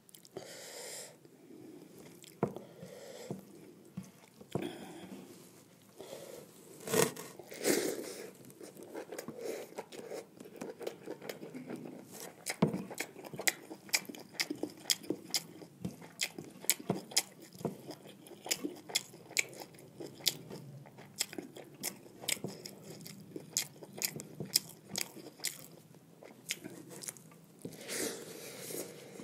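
A person chewing and biting food close to the microphone, with many quick sharp mouth clicks and smacks that come thicker in the second half. The food is jeera rice with fried buffalo tongue.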